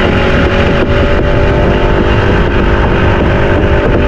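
Small fishing boat's outboard motor running steadily, with strong wind buffeting the microphone.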